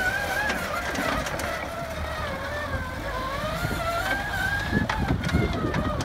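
Bobcat B300 backhoe loader driving, its engine running with a low rumble under a high, wavering whine that rises and falls in pitch, and a few knocks near the end.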